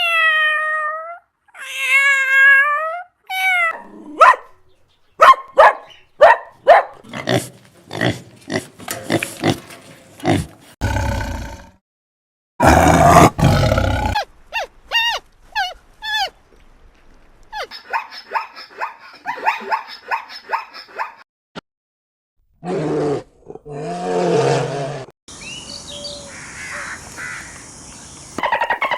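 A run of different animal calls played one after another, each lasting a few seconds with short silences between: two pitched calls at the start, then a quick string of sharp calls, a loud rough call, a rhythmic series of short calls and a low call near the end.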